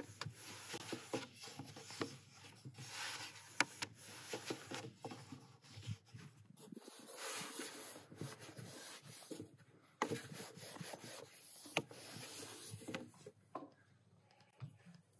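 Long thin wooden rolling pin rolling and rubbing over a floured wooden board as dough is rolled out thin, with repeated swishes and light knocks of wood on wood. It dies down near the end.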